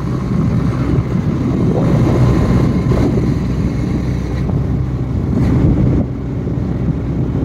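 A motorised two-wheeler's engine running steadily while riding along a road, with wind and road noise.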